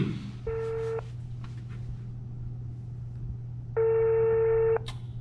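Telephone ringback tone on an outgoing call waiting to be answered: a short steady beep about half a second in, then a longer one lasting about a second near the end, over a steady low hum.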